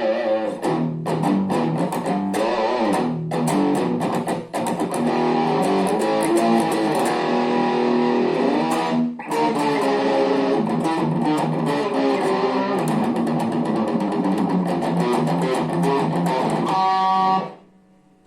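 Electric guitar played as a sound test, mixing picked single notes and strummed chords. It stops abruptly about a second before the end.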